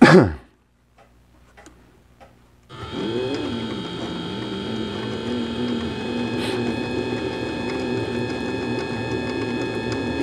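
Mini lathe running under power on a thread-cutting pass: it starts about three seconds in and runs steadily, its motor and gear train giving a steady whine over a wavering lower hum. Just before that there is a short, very loud sweep that falls quickly in pitch.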